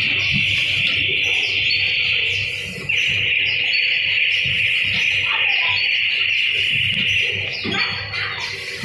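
Rotary doypack pouch filling and sealing machine running: a loud steady high hiss, with short chirps and squeaks from its moving parts repeating about once a second. The hiss dips and cuts back in sharply about three seconds in, and eases off near the end.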